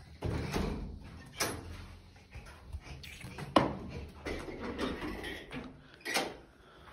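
A door being opened and moved, likely a balcony door: a handful of sharp knocks and clicks over a faint rumble, the loudest about three and a half seconds in.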